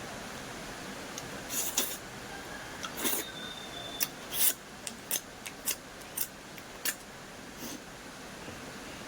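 Close-up crunchy chewing: a run of short, crisp crunches as a mouthful is bitten and chewed, thickest in the middle, over a steady background hiss.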